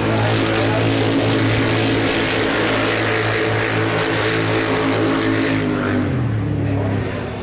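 UTV engines running with a steady drone under a rushing noise; about six seconds in the noise eases off and the engine note shifts.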